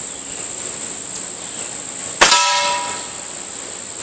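A single shot from a Beeman RS2 spring-piston .22 air rifle about two seconds in, with the pellet hitting a frying pan target that rings briefly with a metallic clang. A steady high insect chirring runs underneath.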